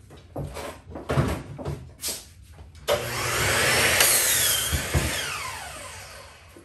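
A few scattered knocks of handling, then about three seconds in a small electric fan-driven power tool whirs up suddenly, runs briefly and spins down with a falling whine.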